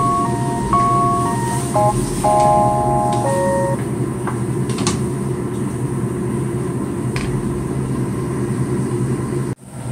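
Steady low rumble of a lit gas stove burner under a wok of boiling water, with a few short clicks of a spatula stirring in the wok. A short melody of background music plays over the first few seconds, and the sound cuts out sharply just before the end.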